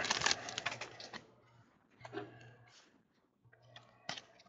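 Trading cards being handled: a few faint clicks and short rustles as cards and their foil pack wrapper are slid and shuffled, with a sharper click near the end.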